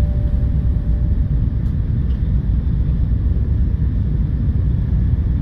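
Steady low rumble of a Tokaido Shinkansen running at speed, heard from inside the passenger cabin.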